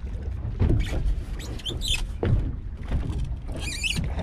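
Wind and water washing against a small boat's hull, with scattered clicks and two short bursts of wavering high squeaks, about two seconds in and near the end.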